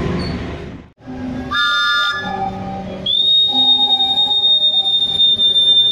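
A railway whistle blown as one long, steady, high-pitched blast: the departure signal given while the station staff hold up the signal paddle to send the train off. A steady engine hum runs underneath, and a brief horn-like toot comes just before the whistle, right after a sudden cut.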